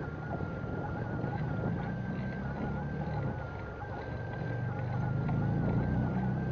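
Bicycle riding along a paved cycle path: a steady low rumble of tyres and wind on the microphone, growing louder over the last second or so. A faint, thin high whine steps between two pitches throughout.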